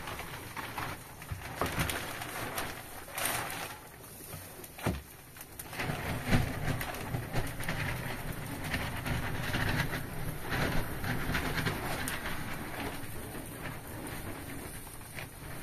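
Pigeons cooing, with scattered sharp knocks.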